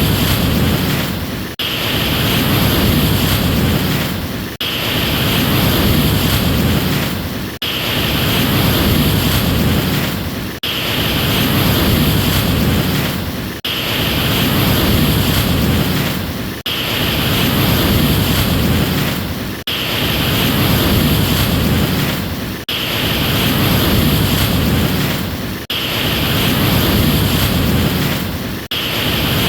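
Ocean surf washing in a steady rushing hiss that swells and then dips sharply about every three seconds, in near-identical repeats like a short looped recording.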